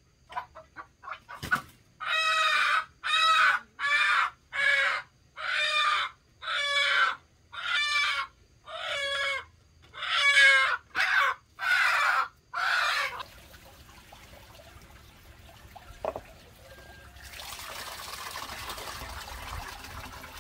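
A chicken calling: a run of short quick notes, then about a dozen loud drawn-out calls roughly one a second that stop about two-thirds of the way through. Near the end a steady hiss of noise comes up.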